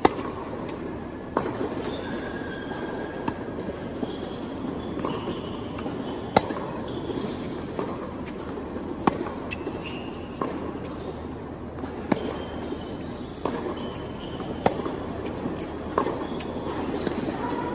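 Tennis balls struck with rackets in a warm-up baseline rally: a sharp pop of the strings every one to three seconds, over a steady background hubbub in a large indoor arena.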